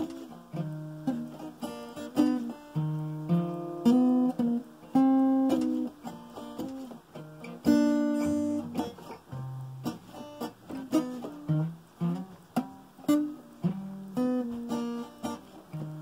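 Acoustic guitar played alone with no singing, a mix of strummed chords and picked single notes, each starting sharply and ringing out before the next.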